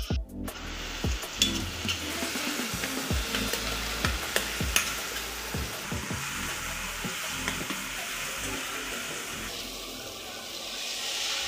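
Chopped tomatoes sizzling in a hot stainless steel kadai while a metal spatula stirs and scrapes them, with repeated clicks of metal on metal. Near the end something is poured in from a steel tumbler and the sizzle swells.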